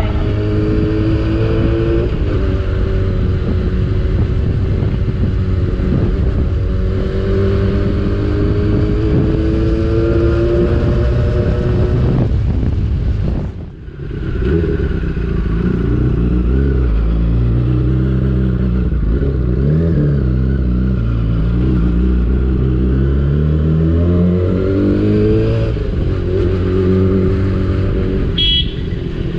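Yamaha R6 600cc inline-four sportbike engine running under way, its pitch climbing and falling repeatedly through the gears, with wind noise on the helmet-mounted microphone. The throttle shuts briefly about halfway through and the sound dips before building again. A short high beep sounds near the end.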